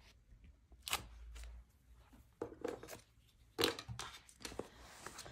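Soft desk-top handling of washi tape and paper: the tape laid across a planner page against a clear ruler and pressed down, giving scattered small clicks and rustles, with a sharper click about a second in.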